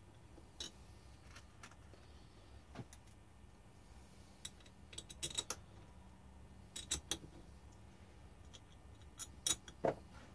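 Light metallic clicks and rattles of small bolts and hardware being handled on a workbench, coming in short clusters, loudest near the end.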